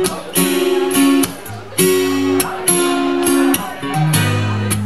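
Acoustic guitar strummed, a new chord struck every half second to a second, with the chords changing and a bass note joining low underneath near the end.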